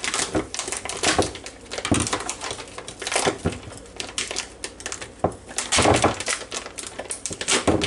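Plastic wrapper on a package of frozen chicken thighs crinkling and crackling as it is cut and pulled open with a kitchen knife, in irregular sharp crackles.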